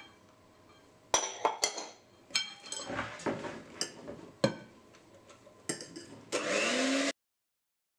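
A run of sharp clicks and knocks as an electric hand mixer is handled and its beaters are set into a glass bowl of batter. Near the end the mixer's motor switches on and whines up in pitch, then cuts off suddenly after under a second.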